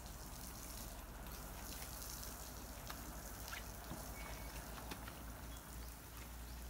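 Garden hose spraying water onto a car's body, a steady hiss of water with splashing and dripping.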